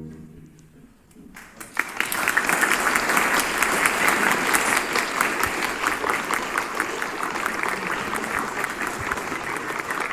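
The orchestra's last note dies away, and after a short hush the audience starts applauding about a second and a half in, the clapping then running on steadily.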